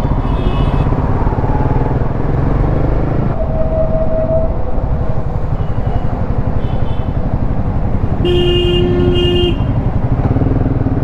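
Steady rumble of a motorcycle ridden through city traffic, with vehicle horns honking: a short, thin horn about three and a half seconds in, and a louder horn sounded twice about eight seconds in.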